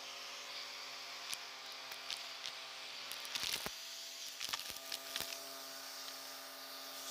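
Vacuum cleaner running steadily through its hose nozzle on a rug, with sharp clicks and rattles as small hard debris is sucked up, most of them clustered a little after the middle.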